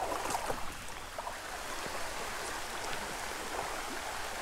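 Heavy rain falling steadily on a small trout creek, mixed with the creek's running water: an even hiss, with a few louder taps near the start.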